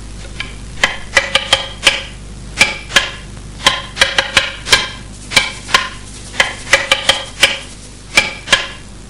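Nunchaku being twirled and handled, its sticks clacking sharply at an irregular pace, about twenty clacks each with a short ringing tail. The clacking stops shortly before the end.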